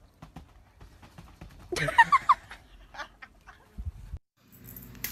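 A person's voice giving a few short high-pitched shrieks about two seconds in, then a dull low thump near four seconds, as from a body landing on a trampoline.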